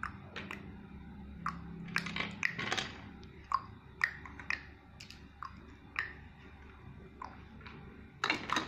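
Small plastic toy animals clicking and knocking together as they are handled and rummaged through, with a quick cluster of clicks near the end.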